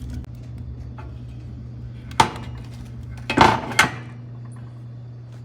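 A piece of firewood knocking against the metal of a wood fire as it is put on: one sharp knock about two seconds in, then a short clatter of knocks a second later, over a steady low hum.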